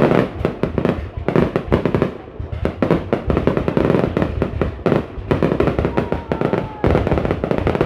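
Fireworks going off in a dense, rapid barrage, many sharp bangs and crackles overlapping with no pause.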